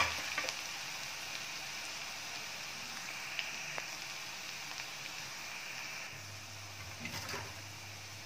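Crushed garlic and cumin seeds sizzling steadily in hot oil in a steel kadai while the garlic browns, with a couple of faint pops a few seconds in.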